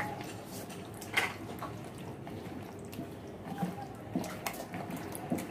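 Hands squishing and turning raw chicken pieces in a wet spice marinade in a plastic bowl: irregular wet squelches and slaps, the sharpest about a second in.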